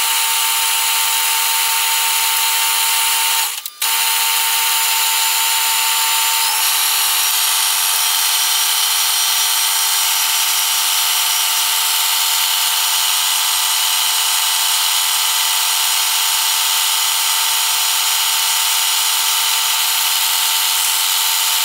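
Metal lathe running, turning a small brass-coloured spacer with a carbide-insert cutting tool: a loud, steady machine hum with a hiss from the cut. It drops out briefly about three and a half seconds in, and its tones shift slightly about six and a half seconds in.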